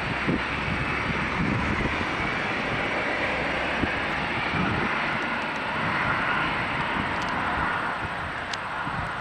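Four-engined Airbus A340-600 jet airliner taxiing, its engines giving a steady, even rush.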